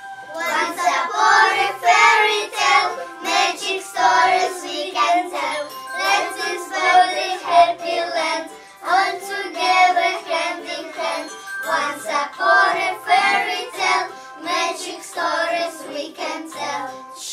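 A group of young children singing a song together over a recorded musical backing track with a regular beat.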